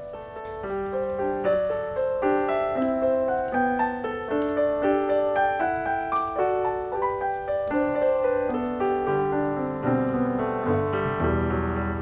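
Background piano music: a steady melody of single notes, with lower bass notes joining in about nine seconds in.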